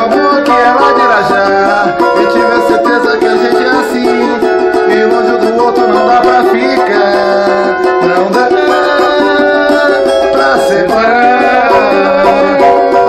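Brazilian four-string samba banjo (banjo-cavaquinho) strummed with a pick, playing a run of chords and melody lines.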